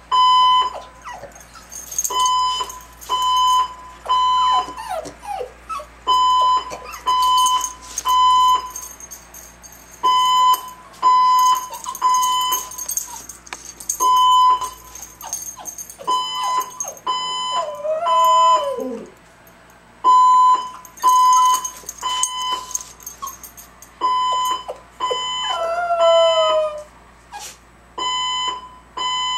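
Fire alarm beeping in repeated groups of three short beeps with a pause between groups, the temporal-three evacuation pattern, with a Chihuahua howling over it in several long cries that fall in pitch.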